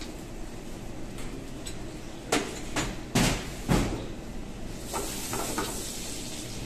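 Wooden spatula knocking and scraping in a non-stick frying pan as lumps of white sauce are worked into hot melted butter, with three sharp knocks in the middle. A sizzling hiss rises about five seconds in, over the steady noise of the gas burner.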